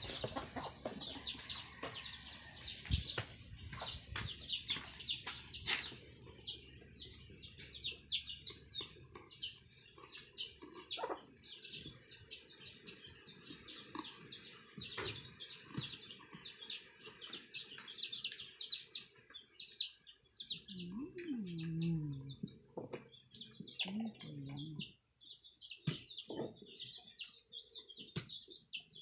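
Small birds chirping rapidly and continuously, with occasional sharp knocks of a kitchen knife striking a wooden chopping board as fish are split open.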